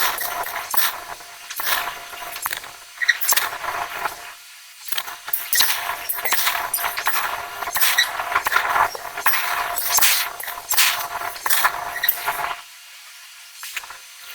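Irregular metallic clanking, jangling and squealing from forging machinery working hot metal, over a faint steady whine. The clatter stops briefly about four and a half seconds in and again near the end.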